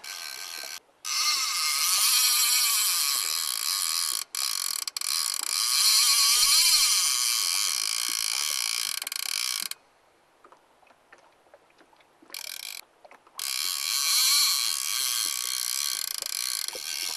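Fly reel's ratchet-and-pawl click drag buzzing as a hooked Atlantic salmon runs and pulls line off the reel. It comes in long runs: one of about nine seconds with two brief breaks, a short burst, then another of about four seconds, each cutting off suddenly.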